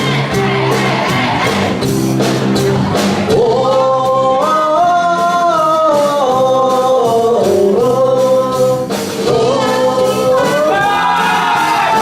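Live singing over band accompaniment with a steady beat, the sung melody sliding through long held notes.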